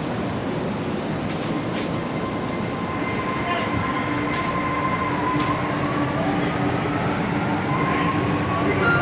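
Lucknow Metro train running, heard from inside the car: steady rumble and rail noise with an electric motor whine that rises in pitch near the end, as the train gathers speed, and a few sharp clicks from the track.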